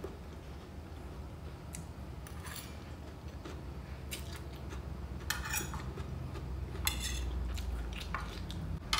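Metal fork and spoon clinking and scraping against a ceramic plate in scattered clicks while noodles are eaten. Under them a steady low rumble from nearby building construction, which grows a little louder in the second half.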